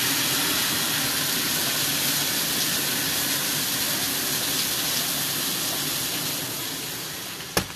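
Heavy rain coming down hard, a steady loud hiss of a downpour. A single sharp click near the end.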